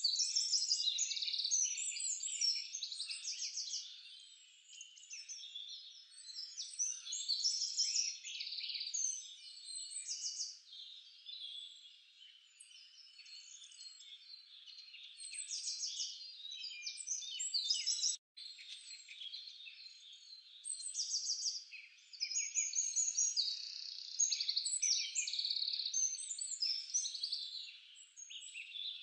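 A dense chorus of frogs and chirping birds: many overlapping chirps and rapid trills that swell and fade in waves. It cuts out for an instant about two-thirds of the way through.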